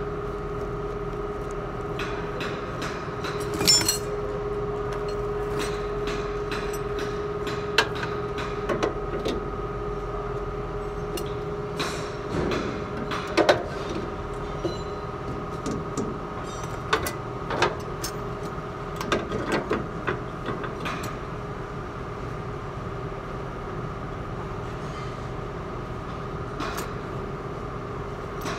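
Scattered metallic clanks and knocks as a new front shock absorber and coil spring assembly is worked up into the wheel well, fewer after about twenty seconds. A steady mechanical hum with a constant tone runs underneath.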